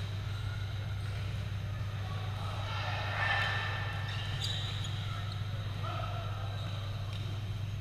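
Indoor badminton hall sound: a few sharp racket-on-shuttlecock hits from a doubles rally over a steady low hum, with distant players' voices swelling briefly about three seconds in.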